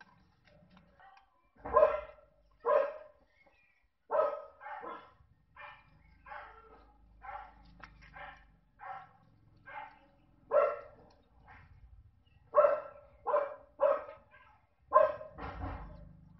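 A dog barking repeatedly, well over a dozen short barks at uneven intervals, the loudest ones a couple of seconds in and in the last few seconds.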